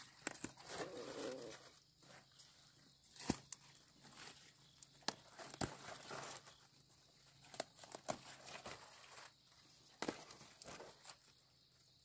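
Irregular footsteps and handling noises: rustles and sharp little snaps, as of someone moving about and working by hand among plants, with a couple of louder snaps about three and five seconds in.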